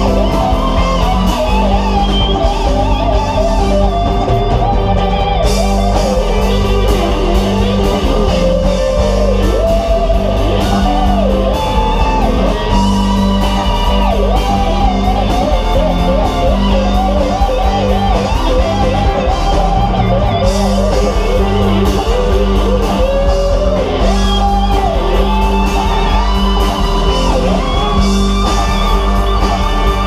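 Funk jam band playing live and loud: electric guitars, bass guitar, drums and keyboards, with a lead melody that slides and bends in pitch over a steady groove.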